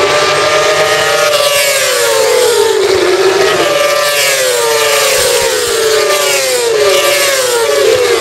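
Several racing motorcycles pass one after another at full throttle down a straight. Their engine notes climb and then drop in repeated waves as each bike comes by and goes away.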